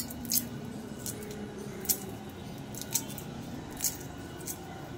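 Shell of hard-boiled eggs cracking and crinkling as it is peeled off by hand: a handful of short, crisp crackles, about one a second.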